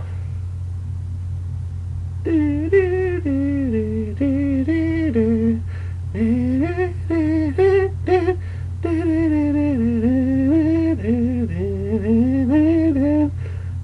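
A man humming a wandering tune to himself, starting about two seconds in, over a steady low background hum.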